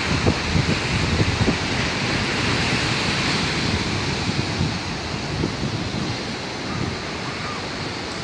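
Sea waves breaking and washing over a rocky shore, with gusts of wind buffeting the microphone, strongest in the first few seconds.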